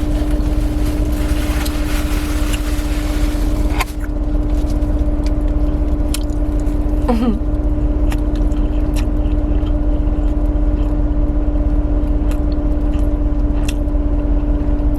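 Steady low hum and rumble of a car interior, with small clicks and chewing sounds of someone eating. A hiss in the first few seconds cuts off suddenly about four seconds in.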